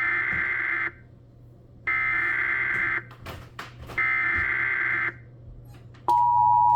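Emergency Alert System SAME header: three buzzy data bursts of about a second each, a second apart. About six seconds in, the steady two-tone attention signal starts, announcing an incoming warning.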